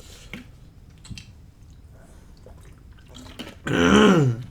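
A few faint clicks and small wet mouth and eating sounds, then near the end a short, loud wordless vocal sound from the man eating, its pitch rising then falling, given while he is overfull.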